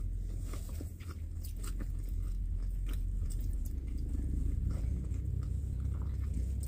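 A person chewing and biting food close to the microphone: small scattered mouth clicks over a steady low hum.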